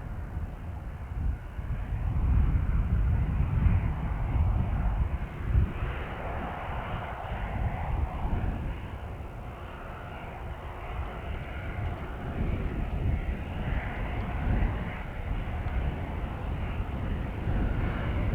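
Airliner engines running, a steady rushing noise that swells and eases, over uneven low rumbling from wind on the microphone.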